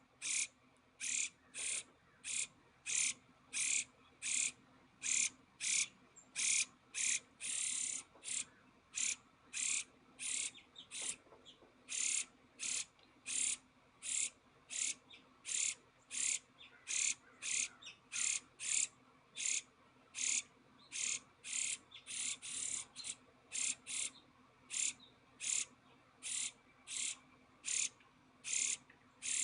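A short, high, rasping call repeated steadily about one and a half times a second, over a faint steady low hum.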